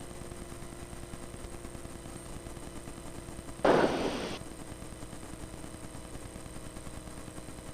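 Steady low cabin hum of a Turbo Bristell light-sport aircraft on final approach, heard through the headset intercom, broken about halfway through by a sudden burst of static-like noise lasting under a second.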